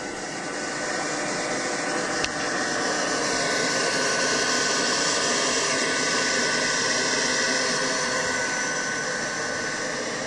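Electric fan of a Black Diamond Jetforce battery-powered avalanche airbag running steadily with a whooshing rush and a faint steady whine, cycling to keep the deployed bag inflated and its pressure up. There is a short click about two seconds in.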